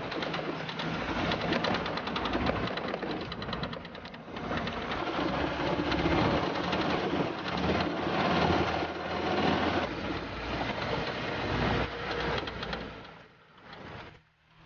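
Engine and road noise of an open-top off-road vehicle driving along a dirt track, with the engine's fast even firing clearly heard. It fades out sharply near the end.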